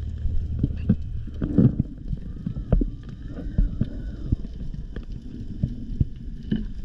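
Underwater sound picked up by a diver's camera: a steady low rumble with scattered clicks and knocks, and a faint wavering whistle in the middle.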